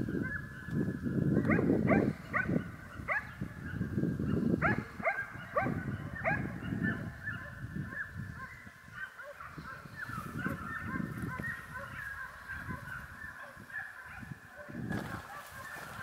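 Pack of hunting dogs yelping and baying, many short overlapping calls, louder in the first half.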